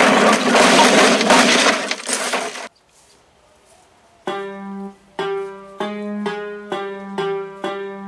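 A loud noisy rush that cuts off suddenly about two and a half seconds in, then after a short pause, background music of a plucked string instrument like a banjo, about two notes a second.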